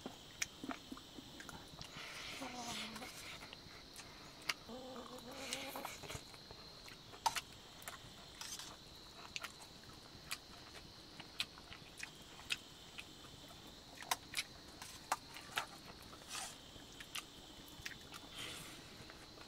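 Irregular sharp clicks of a spoon against a dish while eating, over a faint steady high-pitched hum. Two short voice-like murmurs come in the first six seconds.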